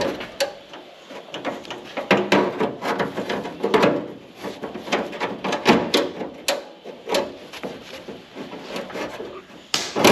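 Irregular clicks, knocks and scrapes from hand work on a Renault Estafette's tailgate latch, trying to release a retaining pin jammed inside it.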